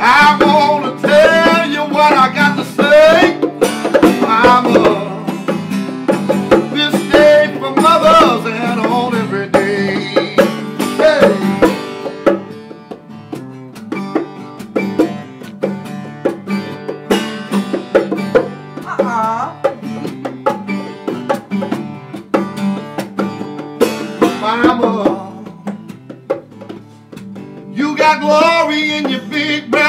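A man singing over picked acoustic guitar in a live acoustic performance. In the middle the singing drops out for a quieter instrumental stretch, and it comes back near the end.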